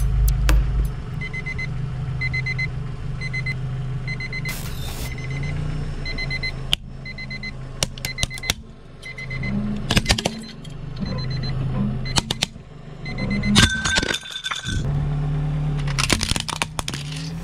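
A green twin-bell quartz alarm clock beeping in quick pairs about once a second, over a car's steady engine hum. From about ten seconds in come sharp cracks and crunching as the car's tyre rolls onto the plastic clock and crushes it, and the beeping stops.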